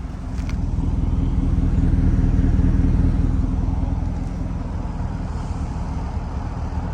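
BMW E60 550i's V8 engine running steadily, getting louder about a second in and easing back a little after about four seconds.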